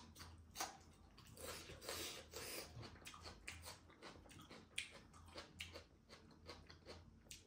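A person chewing a mouthful of fish curry and rice close to the microphone: faint, wet mouth clicks and smacks, irregular throughout.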